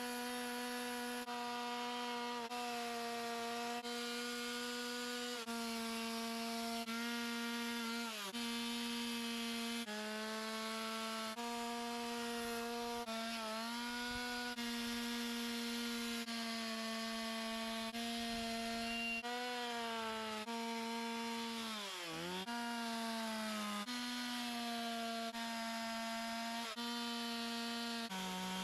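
Two-stroke carving chainsaw running at high revs, its steady whine dipping sharply in pitch twice as it bogs into the wood and recovers. The pitch also jumps abruptly about every second or so.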